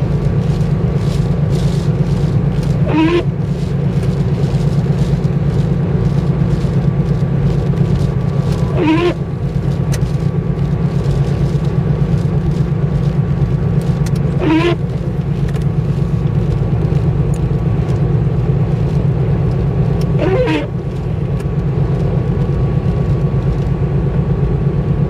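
Car cabin while driving in the rain: a steady drone of engine and tyres, with a windscreen wiper squeaking across the wet glass four times, about every six seconds.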